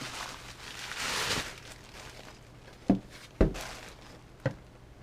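Plastic packaging rustling as an RC radio transmitter is unpacked, followed by three sharp knocks of the items being handled.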